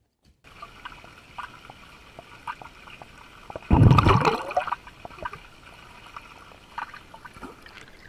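Swimming-pool water sloshing and gurgling, with a loud burst of splashing about four seconds in that lasts about a second.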